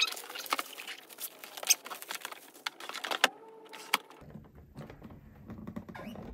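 Plastic shrink-wrap being peeled off a cardboard game box, crinkling and crackling sharply for about three seconds, then quieter rustles as the box is handled.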